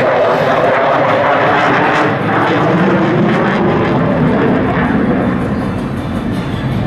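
Dassault Rafale's twin Snecma M88 turbofans on afterburner, a loud, steady jet roar as the fighter flies overhead. The roar's pitch sinks gradually over the few seconds.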